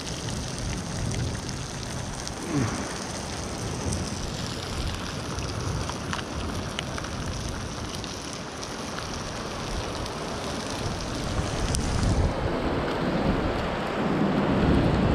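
Food sizzling in a frying pan over a campfire as sauce is poured in, a steady hiss. Near the end wind and surf grow louder underneath.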